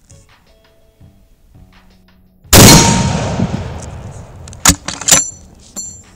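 A Mauser Tankgewehr M1918 anti-tank rifle in 13.2x92mmR fires a single shot about two and a half seconds in: one very loud boom with a long echoing tail. A couple of seconds later the bolt is worked open, giving a few sharp metallic clacks with a ringing tone.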